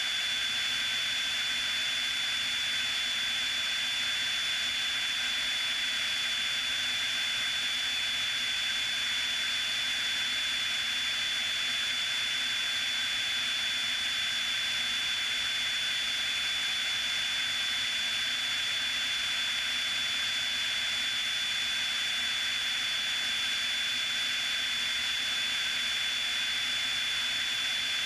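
Steady cockpit drone of a Piper Cherokee's single piston engine and propeller in cruise flight, with a steady high-pitched whine running over it.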